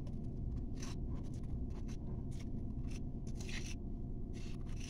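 Short scrapes of a small spoon against a glass bowl, scraping wet plaster slurry out into a plastic mold: about six brief strokes, over a steady low hum.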